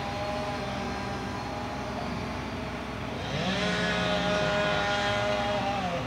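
Sumitomo SH240 log loader's diesel engine running, then revving up about three seconds in and holding at higher revs as the hydraulics swing the boom and grapple.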